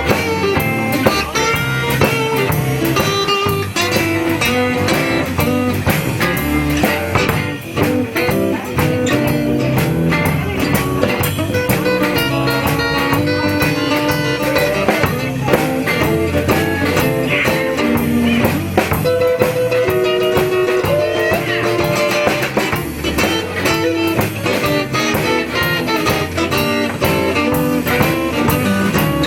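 Blues band playing an instrumental break: a lead guitar solo with bent notes over bass and drum kit.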